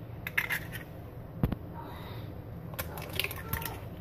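Egg being cracked on the rim of a glass mixing bowl: light clinks and shell clicks, with one sharp crack about a second and a half in and a few smaller taps near the end.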